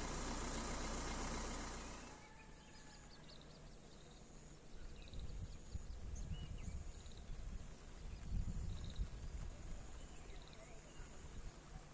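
Rural wetland ambience: birds chirping and a short, high call repeating about every second and a half, with low wind rumble on the microphone in the middle. It opens with about two seconds of a loud steady hiss that cuts off.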